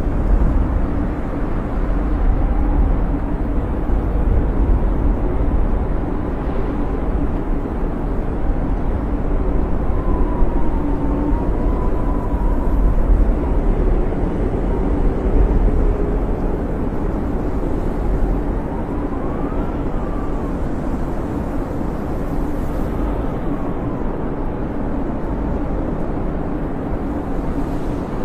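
Snowstorm wind blowing in a steady low rumble, with a faint whistle that rises and falls now and then.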